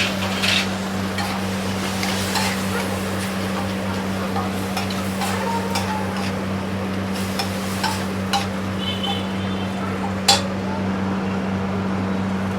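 A metal utensil clinking and scraping on a griddle as pav bhaji is stirred, with a sharp clank about ten seconds in. A steady low hum runs underneath.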